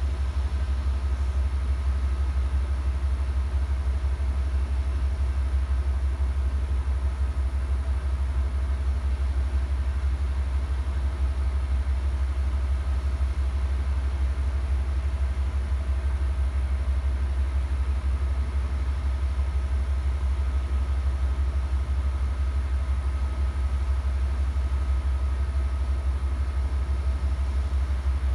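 Stopped Amtrak passenger train idling: the diesel locomotives give a steady low rumble, with faint steady whining tones above it.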